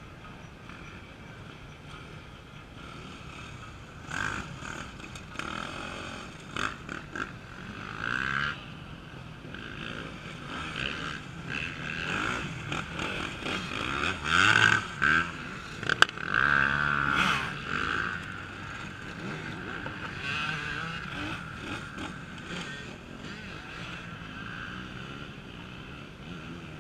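Off-road racing motorcycles running under a steady drone of engines, with several louder bursts of revving as bikes pass close. The loudest surges come about two thirds of the way through, with one sharp click among them.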